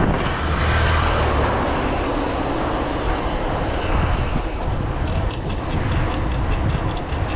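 Wind buffeting the camera microphone over the rumble of a mountain bike's tyres rolling on the road. A quick, even ticking joins in about five seconds in.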